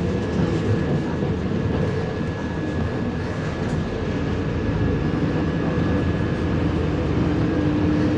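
Cabin noise inside a MAZ 105.065 articulated city bus under way: a steady low engine and road rumble with a faint constant high whine. A low hum rises slightly in pitch near the end as the bus picks up speed.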